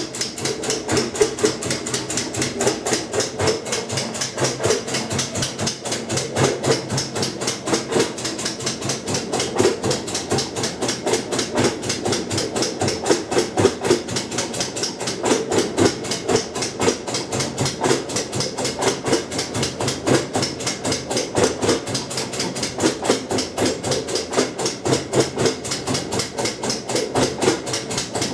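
Kenmore 90 Series top-load washer running in its rinse cycle with rapid, evenly spaced clicking, several clicks a second, over the steady hum of its motor. The clicking is a fault that comes only in the rinse cycle and makes the house lights blink along with it.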